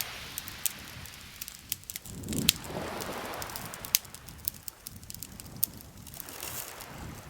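Campfire crackling, with frequent sharp pops and snaps at irregular intervals over a soft rushing noise that swells and fades three times.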